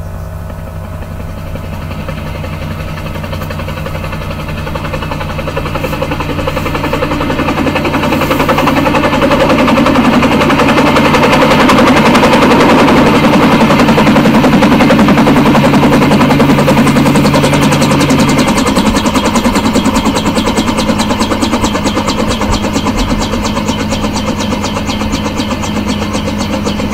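Instrumental beat: a held bass note that steps up in pitch about two-thirds of the way through, under a dense, rapid rattling pattern that swells to its loudest midway and then eases off.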